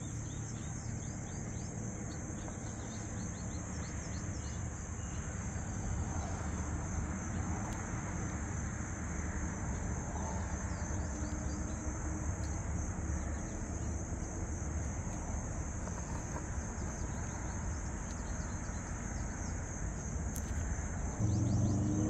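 Steady high-pitched insect chirring over a low background rumble. Music comes in near the end.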